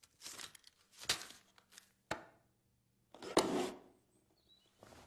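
Movement sounds of a seated man shifting: heavy robes rustling and a wooden chair knocking, in a few short bursts with the loudest about three and a half seconds in.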